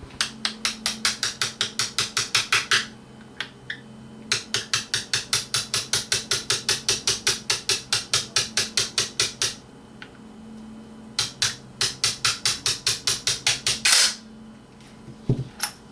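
Pin punch struck with rapid light hammer taps to drive the trigger-group pins out of a Remington 1100 shotgun's receiver. The taps come in three runs of about seven or eight a second, each run growing louder toward its end.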